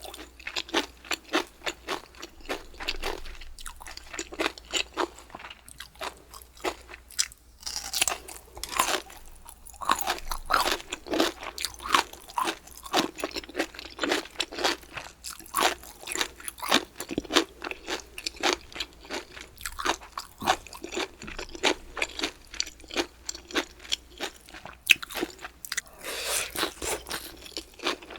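Close-miked chewing of crisp bamboo shoots: rapid, repeated crunches several times a second, with short pauses between mouthfuls.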